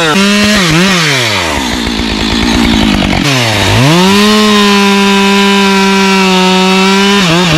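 Husqvarna professional two-stroke chainsaw revving up and down in quick blips, then dropping low about three and a half seconds in before climbing to a steady high pitch held for about three seconds, and dropping off again near the end.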